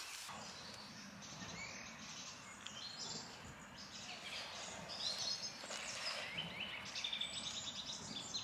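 Faint songbirds chirping in woodland, scattered short calls with a quick run of repeated notes near the end, over a low steady outdoor background hiss.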